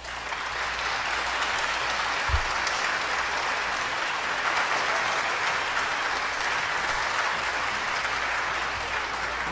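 Audience applauding steadily, easing off slightly near the end, with a brief low thump about two seconds in.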